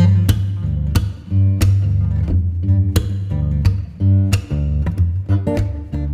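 Background music: guitar, acoustic-sounding, with a bass line and a steady strummed beat.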